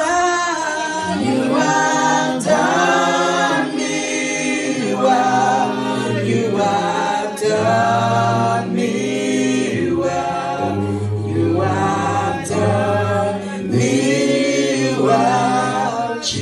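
Gospel worship singing through microphones, led by a woman's voice with other voices joining, the melody bending and sliding in long phrases over steady low held notes.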